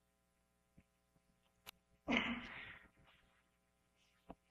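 Quiet room tone with one short, breathy rush of noise about two seconds in, a breath into the lectern microphone, and a couple of faint clicks.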